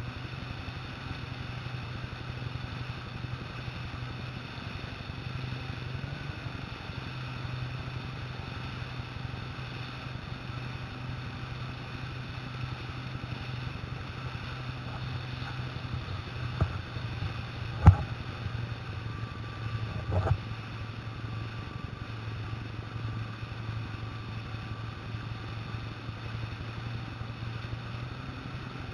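Jet ski engine running steadily at speed over the rush of water. A few sharp knocks a little past halfway, one much louder than the others.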